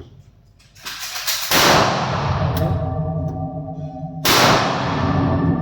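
Two handgun shots about three seconds apart, each sharp crack followed by a long echoing decay.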